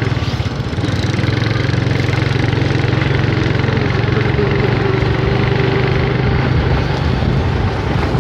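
Motorcycle engine running steadily while riding, with wind and road noise on the microphone.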